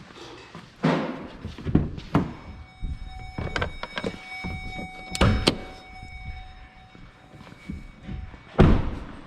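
A run of irregular thunks and knocks of hard objects being handled and set down, one of them leaving a short metallic ring in the middle; the loudest knock comes near the end.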